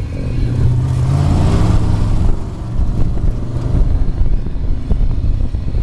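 Dune buggy engine running under load while driving over sand, its note climbing and then dropping about two seconds in.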